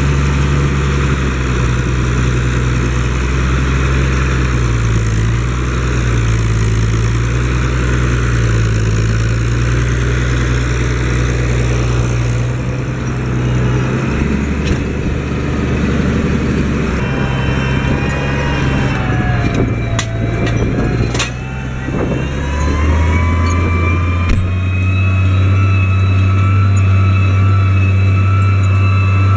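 Case IH 1056 XL tractor's six-cylinder diesel engine running steadily while it pulls a four-furrow plough. About two thirds of the way through, the engine note dips and then climbs again, with a couple of sharp clicks.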